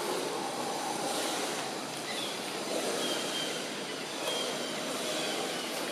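Steady rushing background noise, with several faint short high chirps scattered through it.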